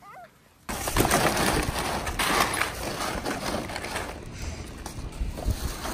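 Loose ice cubes clattering and crunching against each other and the plastic of a kiddie pool as a husky paws and steps through them: a dense run of small knocks that starts suddenly about a second in.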